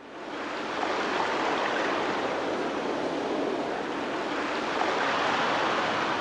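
Recorded nature ambience of rushing water, fading in over about a second and then running steadily with slow, gentle swells: the background sound bed of a guided relaxation audio program.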